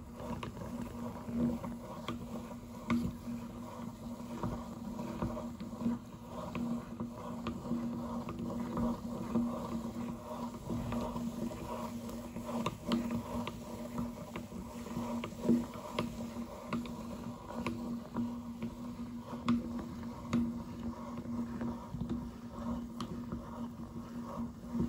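Hand-cranked metal meat grinder being turned, its auger grinding banana choco pie through the cutting plate. A low grinding swell repeats about every second and a half, with scattered small crunching clicks.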